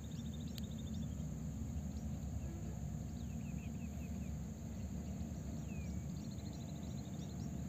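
Open-air ambience: a steady low rumble, with faint bird calls over it (a short run of quick chirps at the start and again near the end, and a few quick descending notes in the middle) and a steady high insect drone.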